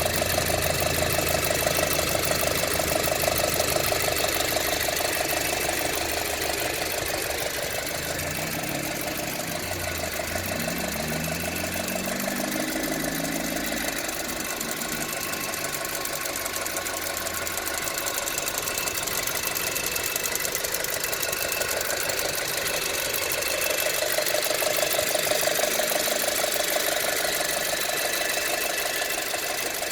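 Audi A4 B7 2.0 TFSI turbocharged four-cylinder engine running hot, with a fast, even ticking clatter over its running sound. This is the noise that shows up once the engine is hot.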